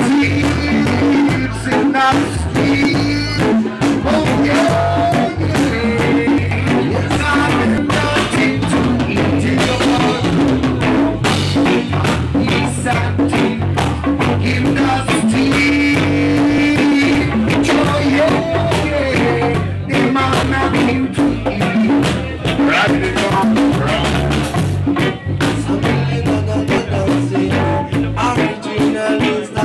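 Live band music with a man singing into a handheld microphone over a drum kit, electric bass and electric guitar.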